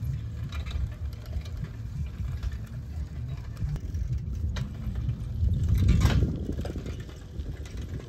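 Wind buffeting the microphone: an uneven low rumble that swells about six seconds in, with a few faint clicks.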